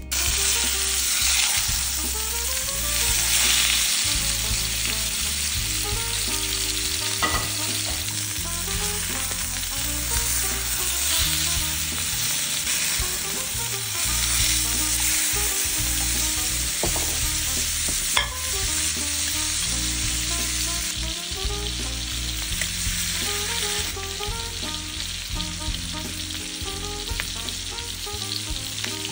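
Filet mignon steaks searing in hot oil and butter in a skillet: a steady, loud sizzle, with an occasional sharp clink of the metal tongs or spoon against the pan.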